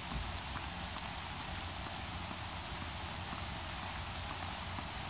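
Steady outdoor background hiss with a few faint, scattered ticks.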